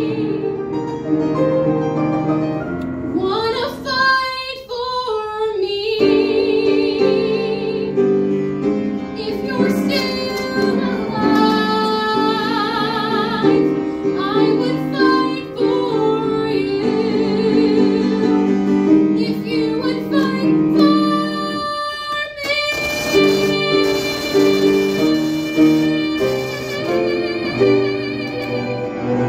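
A woman singing a musical-theatre song solo with vibrato over instrumental accompaniment, ending on one long held note that starts about three-quarters of the way in.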